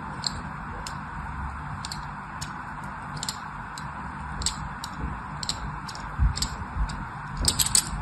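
A thin knife blade scoring lines into a dry bar of soap, making short crisp scratching clicks about one every half second. A quick run of several louder cuts comes near the end.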